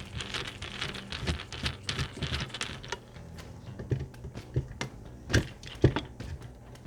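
Rapid small clicks and taps of a screwdriver working a screw out of a computer power supply's metal case, then a few louder separate taps near the end.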